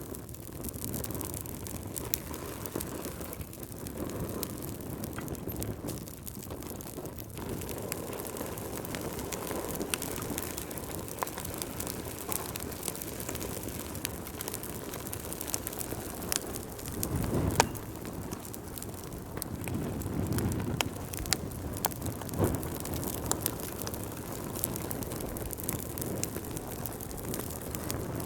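Wood fire burning in a fireplace: a steady low rumble of flames with frequent sharp crackles and pops, one louder pop about two-thirds of the way through.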